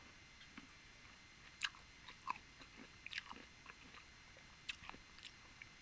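Close-up eating sounds: quiet chewing with scattered short, wet mouth clicks and smacks, the sharpest about one and a half and three seconds in.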